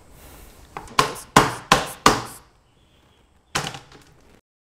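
Kitchen knife chopping a cucumber on a cutting board: four sharp chops about a third of a second apart, then one more about a second and a half later.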